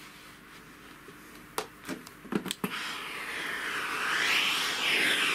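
A few light clicks, then a Bosch steam-station iron hissing as it blows steam onto a knitted garment for the last couple of seconds, the hiss growing louder.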